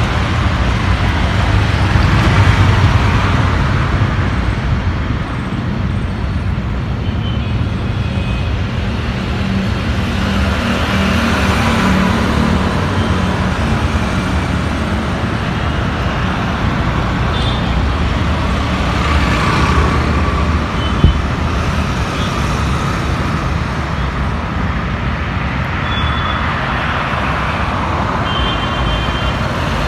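Road traffic on a wide city road. Auto-rickshaws, cars and motorcycles drive past one after another, their engine and tyre noise swelling and fading with each pass. There is a single sharp knock about two-thirds of the way through.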